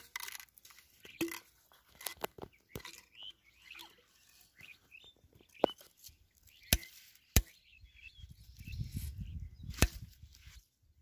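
A wooden plank knocking down onto a piece of clay tile, crushing bait in a string of sharp, irregular chops, the loudest in the second half. Birds chirp faintly behind.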